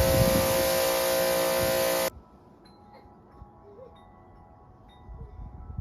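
Greenworks 2000 PSI electric pressure washer running, a steady motor and pump whine over the hiss of the spray, stopping abruptly about two seconds in. After it only faint, brief high ringing tones remain.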